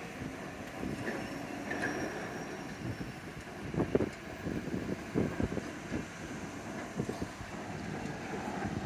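Buffalo & Pittsburgh Railroad freight train rolling past: a steady rumble broken by irregular clunks of wheels over the rail joints, with some wind on the microphone.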